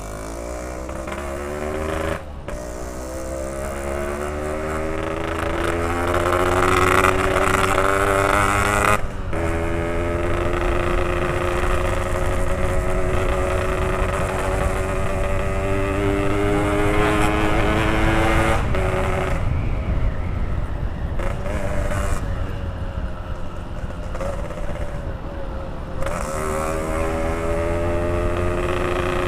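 Yamaha RX-King two-stroke single with a PK3 expansion-chamber exhaust, riding and accelerating up through the gears. The engine pitch rises steadily in each gear and drops back at each shift, about four shifts, over a steady rush of wind and road noise.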